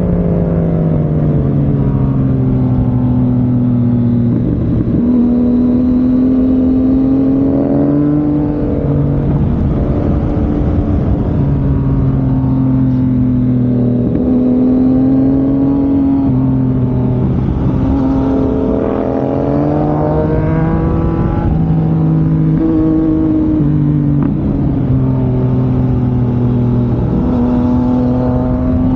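Sport motorcycle engine and exhaust at riding speed, the revs climbing and dropping several times with stepped changes in pitch as gears are changed.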